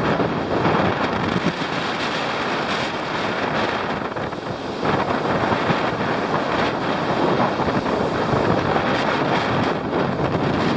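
Wind blowing hard across the microphone, a steady rushing noise that eases slightly about four seconds in.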